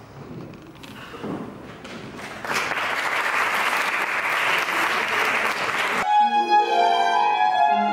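Faint footsteps, then audience applause for about three and a half seconds, cut off suddenly about six seconds in by a violin playing a melody.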